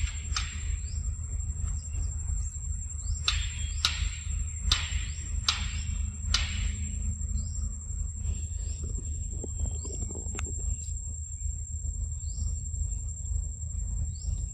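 Insects drone in a steady high whine over a low rumble. A run of five sharp chirps comes about a second apart, between about three and six and a half seconds in.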